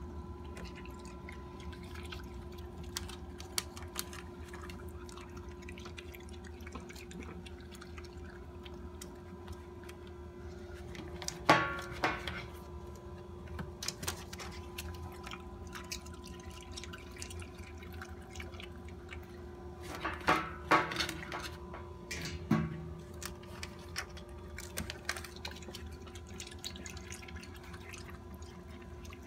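Raccoons' claws and paws clicking, tapping and scraping on an aluminium window track and glass as they feed, with a few louder knocks about eleven seconds in and again around twenty to twenty-two seconds, over a steady hum.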